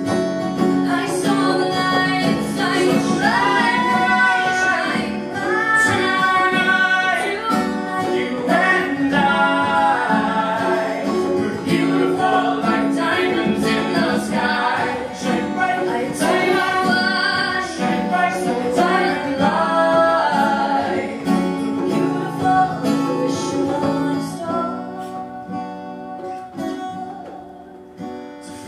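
A woman singing a song over an acoustic guitar. Near the end the singing drops away and the music gets quieter.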